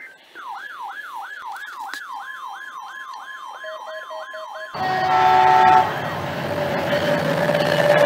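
Electronic siren wailing up and down about three times a second. It cuts off abruptly, giving way to a Caltrain MP36 diesel locomotive rumbling past with its train. Over the first second of the train comes a loud short horn chord.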